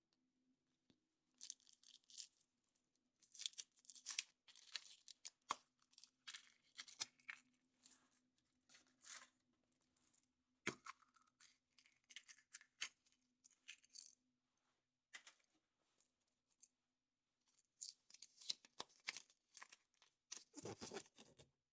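Thin foil wrapper of a chocolate surprise egg being peeled off and crinkled by hand in irregular bursts, with a few sharp clicks and a fuller rustle near the end.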